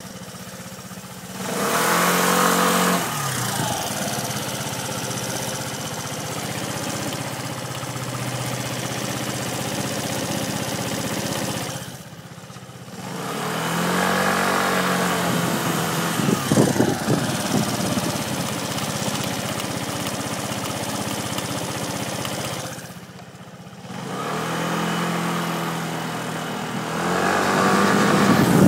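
Suzuki GSR FI scooter's engine running up three times, each time held for several seconds, then dropping back, with the rear wheel spinning down between runs. The rear wheel makes an abnormal noise as it coasts before stopping.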